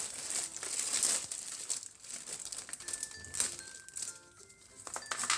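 Clear plastic packaging bags crinkling and rustling in irregular bursts as they are handled and turned over.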